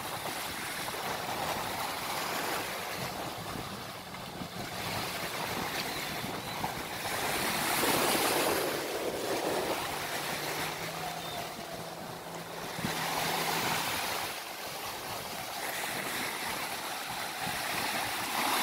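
Surf breaking and washing in surges, with wind on the microphone. Under it is the steady hum of a jet ski's engine as it passes towing a tube ride, plainest around the middle.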